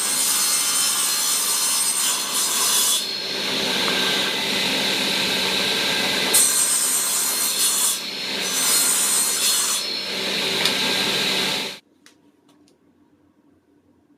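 Power tool cutting into wood, a loud, continuous rasping noise with a steady motor tone underneath that wavers in strength. It stops abruptly about twelve seconds in.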